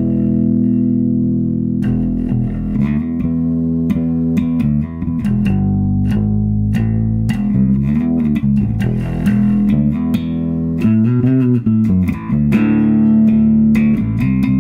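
Electric bass guitar playing: one held note, then a run of plucked notes with sharp attacks and a few pitch slides.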